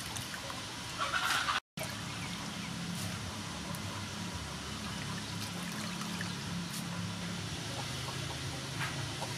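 Water trickling and sloshing as raw shrimp are rinsed by hand in a stainless steel bowl, with a brief gap in the sound just before two seconds in.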